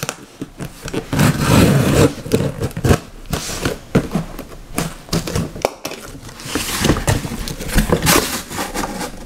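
Utility knife slicing along the packing tape on a cardboard box's seam: irregular scraping and crackling of blade, tape and cardboard, coming in spells.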